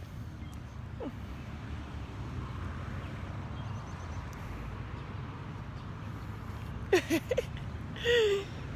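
Steady low outdoor rumble, like distant road traffic. About seven seconds in and again just after eight, a few short vocal sounds that sweep up and down in pitch cut in.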